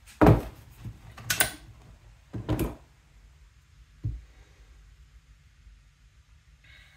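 Four short knocks and clunks, about a second apart, of wood and tools being handled on a workbench. The first is the loudest. A low hum runs underneath.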